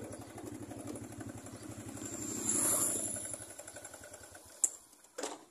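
Small motorbike engine running at low speed with a steady low putter, swelling louder about halfway through. The engine sound fades away in the last couple of seconds, followed by a sharp click.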